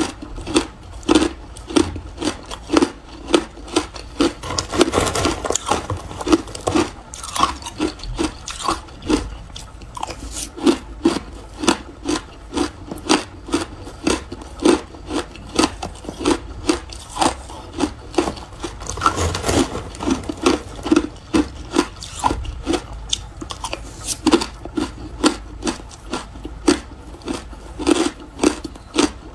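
Mouthful of crushed ice being chewed with the mouth closed: a steady rhythm of crisp crunches, about two a second, close to the microphone.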